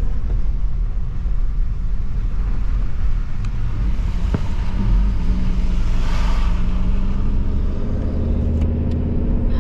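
A car driving on the road, heard from inside: a steady low rumble of engine and tyres. A brief whoosh swells and fades about six seconds in, and a low steady hum comes in near the end.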